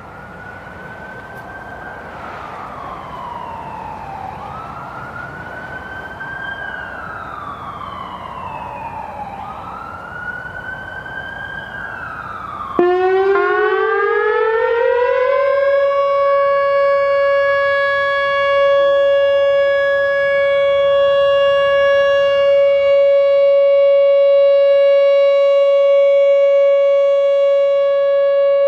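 Distant outdoor warning sirens wail, rising and falling every few seconds. About 13 seconds in, a nearby Whelen WPS-3000 series electronic warning siren starts abruptly, much louder. It glides up over about three seconds, then holds a steady single-pitch 560 Hz alert tone.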